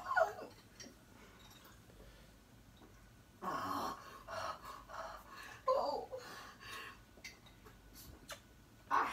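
A person's breathing and short gasps at the table while eating and drinking, coming in a few separate bursts after a quiet start.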